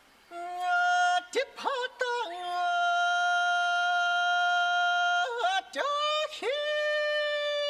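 A solo voice singing unaccompanied in the high, long-held style of traditional Guizhou minority folk song. Short yodel-like flips in pitch break between two long sustained high notes, and the last note sags at its end.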